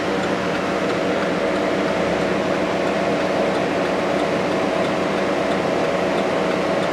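A 2009 Chevy Silverado's engine idling steadily, heard from inside the cab: an even, unchanging hum.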